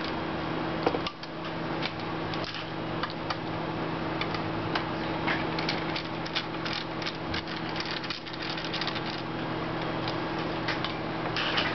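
Small screws being worked out of a PowerBook G4's aluminium case with a small screwdriver: a run of light metallic clicks and ticks, with a louder cluster near the end, over a steady low hum.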